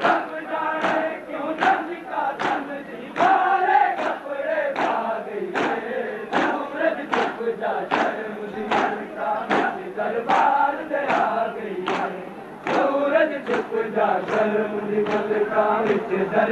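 A large crowd of men chanting a noha, a Shia lament, in unison, with sharp strikes of matam (chest-beating) keeping time about once every 0.8 seconds.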